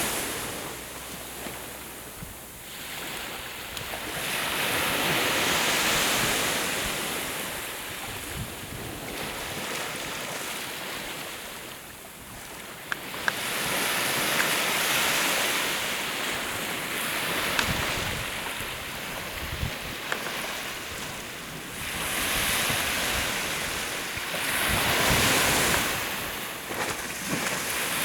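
Sea waves washing onto the shore, the surf swelling and fading every several seconds with no steady rhythm.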